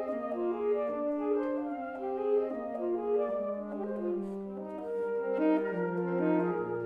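Saxophone quartet of soprano, alto and baritone saxophones playing smooth, slow-moving chords in four parts, several held notes sounding together and shifting every half second or so. A low bass note comes in near the end.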